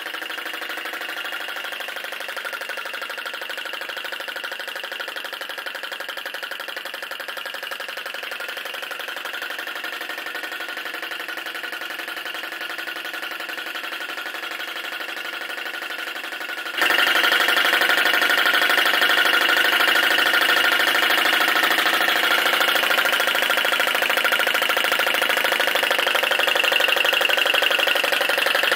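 Small flame licker vacuum engine running fast and steadily, its valve and piston making a rapid even clatter as it drives a small belted generator. The sound becomes suddenly louder about 17 seconds in.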